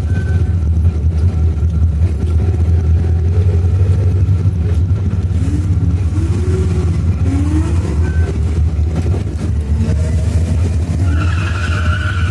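Lada 2107 with a 2000 cc Fiat engine running steadily at low revs while the car rolls slowly. A brief high squeal comes near the end.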